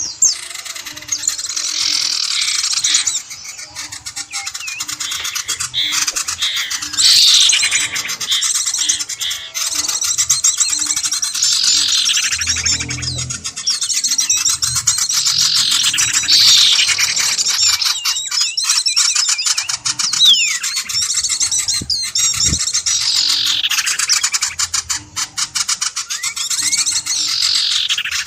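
Bird lure call recording: dense high-pitched bird chirping, with a call that sweeps down in pitch repeated about every two and a half seconds.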